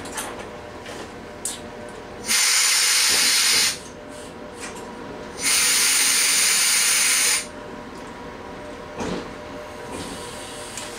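Two loud bursts of compressed air hissing from the train's air system, each starting and stopping abruptly and lasting a second or two, over the steady running noise of the train.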